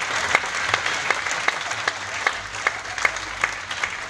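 Audience applauding, with a steady beat of louder claps about two to three times a second standing out from the mass of clapping, which dies down toward the end.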